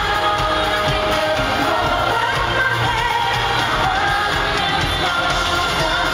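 Amplified live pop music with singing, played loud through an arena sound system and heard from among the audience. Heavy bass and a dense band sound continue at an even level throughout.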